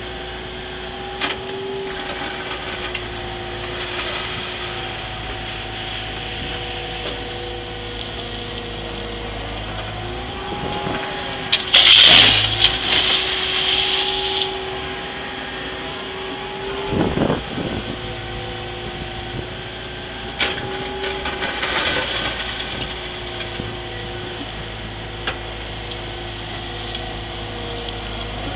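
Caterpillar M312 wheeled excavator's diesel engine and hydraulics running steadily under working load, heard from inside the cab, the engine's tone dipping as the machine works. A louder harsh noise lasts about three seconds, starting about twelve seconds in, and a sharp knock comes a few seconds later.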